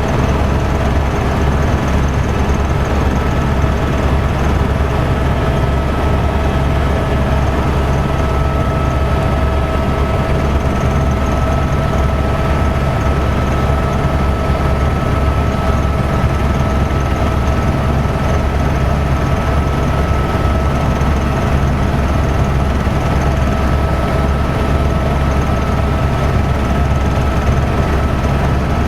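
Tour helicopter running steadily, heard from inside the cabin: a loud, unbroken deep drone of the rotor and engine with a steady high whine over it.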